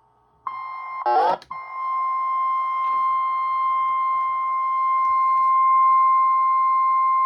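NOAA Weather Radio warning alarm tone: a steady 1050 Hz alert tone, coming in about half a second in and held, that marks a new warning about to be broadcast. A brief loud burst of noise cuts across it about a second in.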